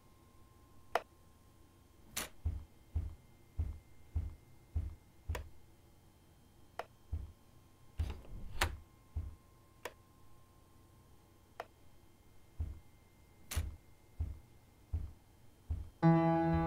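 Footsteps on a hallway floor: a run of dull steps about two per second, then a pause with a few scattered clicks, then another run of steps. Near the end a loud sustained music chord comes in.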